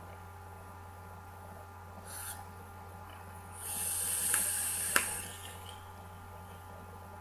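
Drag on a Twisted Messes rebuildable dripping atomizer fired by a mechanical mod: a hiss of air drawn through the atomizer with the coil firing, lasting about two seconds and starting nearly four seconds in, with two sharp clicks, the louder one near its end. A brief hiss comes about two seconds in.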